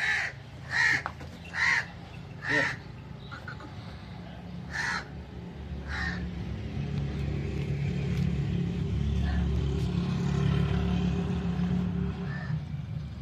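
A crow cawing, about six caws in the first six seconds, the first four coming quickly in a row. After that a low steady rumble swells and holds, easing off near the end.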